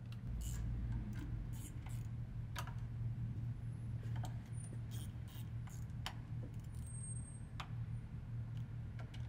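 Scattered light clicks of a small hand tool on metal as the transmission's internal filter bolts are run in by hand, irregular rather than a ratchet's rhythm, over a steady low hum.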